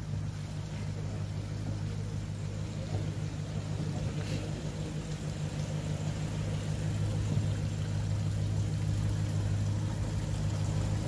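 Land Rover Discovery engine running steadily at low speed as it drives through a flooded ford, growing gradually louder as it approaches.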